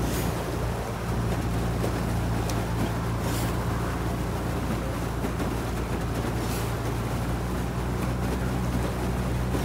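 Outboard motor of a coaching launch running at a steady low drone, with water and wind noise over it.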